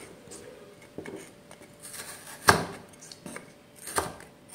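Kitchen knife cutting a potato into chunks on a cutting board: a few separate knocks of the blade on the board, about a second and a half apart, the loudest about halfway through.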